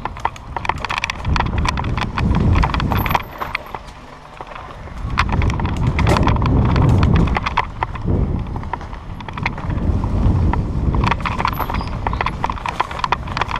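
Mountain bike ridden fast along a bumpy dirt singletrack: chain and frame rattling and clicking over roots and ruts, with wind rumbling on the camera microphone that rises and falls with speed.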